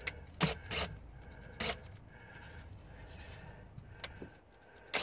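Plywood trap boards being handled: a few sharp wooden knocks in the first two seconds, quiet rubbing and scraping of wood, and a light click about four seconds in.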